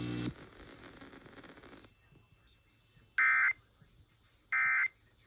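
Emergency Alert System End-of-Message data bursts: two identical short, raspy digital tone bursts about a second and a half apart, the 'NNNN' code that closes an EAS test. A low hum cuts off just before them.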